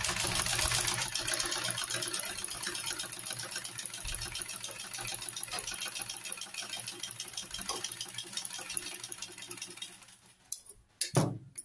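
Maxima half-shuttle sewing machine stitching through cloth, running at a fast, even rhythm for about ten seconds and then stopping. A few short snips near the end as scissors cut the thread.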